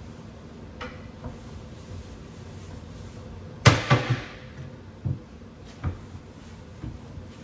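A wooden kitchen cabinet door bangs shut about halfway through, the loudest sound, with a short ringing tail. Lighter knocks and clatters come before and after it.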